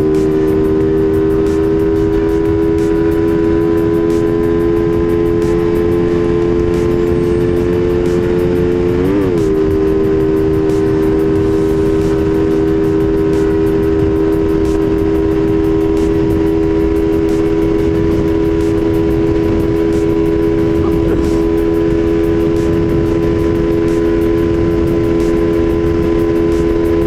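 Suzuki Raider R150 Fi's single-cylinder four-stroke engine held at high, steady revs during a top-speed run, with wind rushing past. About nine seconds in, the revs dip briefly and come straight back up.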